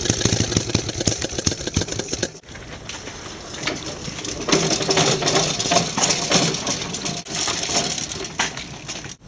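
Small air-cooled engine of a home-built replica Auto-ped scooter running with a fast, even firing beat for about two seconds. Then, after an abrupt break, comes a quieter, more irregular clatter and rattle.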